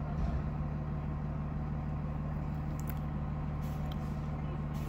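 Fire engine's engine running steadily down the street, a low even drone.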